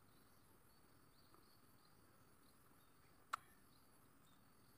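Near silence with faint insect chirping and a steady high insect drone, broken by a single sharp click about three seconds in.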